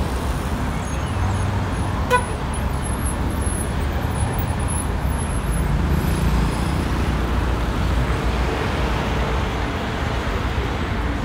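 City street traffic: cars and buses passing with engines running steadily. A brief sharp beep sounds about two seconds in.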